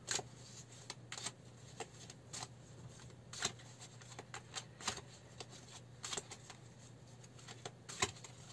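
An oversized Gaian Tarot deck being shuffled by hand: irregular soft snaps and slides of the big cards, a few to the second, over a faint low hum.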